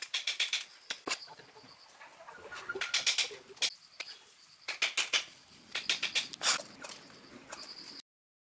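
Steel mason's trowel scraping and tapping against wet mortar and bricks, a run of short scrapes and clicks in clusters, as a course of bricks is laid and excess mortar is scraped from the joints.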